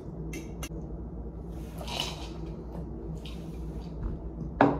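Table sounds during a meal: a few faint clicks of cutlery on dishes over a steady low room hum, a short breathy hiss about two seconds in, and one sharp knock on the table near the end.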